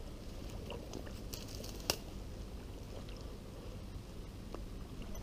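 Wading through shallow, reedy bog water: low sloshing and squelching underfoot with a few small crackles and one sharp click about two seconds in.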